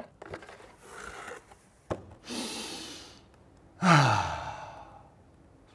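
A man draws a sharp, breathy gasp and then lets out a long sigh that falls steadily in pitch, with a single sharp click just before the gasp.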